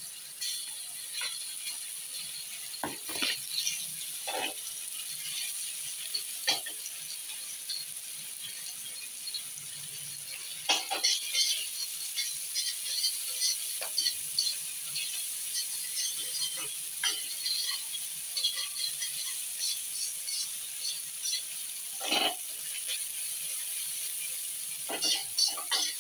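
Cubed chicken thigh sizzling and crackling in hot oil in a stainless steel frying pan, with a utensil scraping and knocking against the pan every few seconds, loudest about 11 and 22 seconds in.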